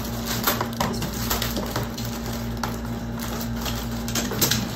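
Crinkling plastic packaging and small clicks and rattles as a record player's accessories, a cable in a plastic bag and a DC adapter, are unwrapped and handled, over a steady low hum.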